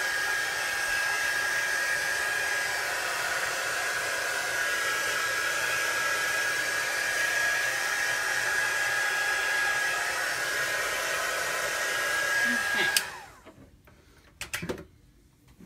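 Handheld hot-air dryer blowing steadily with a high, even whine, drying freshly applied chalk paste on glass. It switches off about 13 seconds in with a click, followed by a couple of light knocks.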